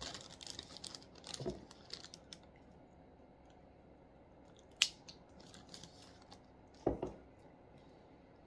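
Plastic zip-lock spice bag crinkling as a plastic measuring spoon scoops ground cumin from it and sprinkles it over chicken, with light scattered clicks; a sharp click about five seconds in and a duller knock about seven seconds in.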